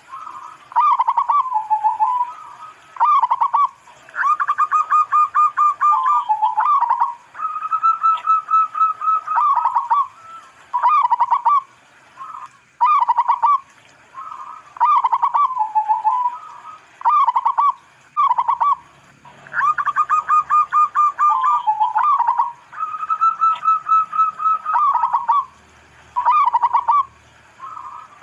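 Local-strain zebra dove (perkutut) singing: repeated phrases of quick rolling staccato coos around 1 kHz, each phrase one to three seconds long with short pauses between.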